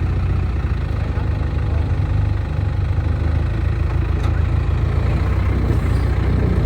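Off-road vehicle's engine running steadily at low revs, a constant low hum.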